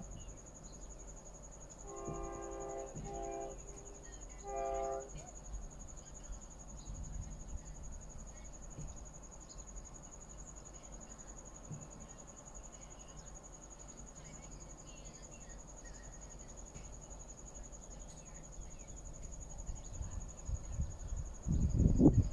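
Train air horn sounding twice: a longer blast about two seconds in, broken briefly, then a short one about five seconds in, over a steady high-pitched insect drone. Near the end a loud low rumble starts.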